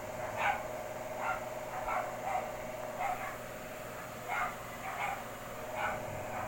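A dog barking repeatedly in short, separate barks, about one every half second to a second, over a steady hum.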